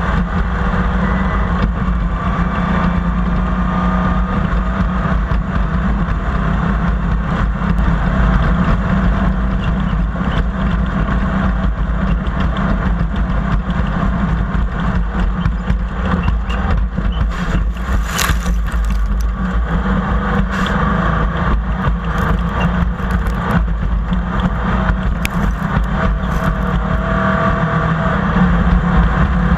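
An engine running steadily at a constant speed, with a brief sharp knock about eighteen seconds in.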